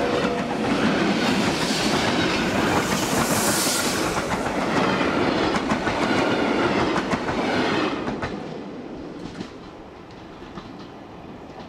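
Passenger coaches of a steam-hauled train rolling past at close range, their wheels clattering over the rail joints. It is loud until about eight seconds in, then fades as the last coach moves away, with a few fainter clicks after.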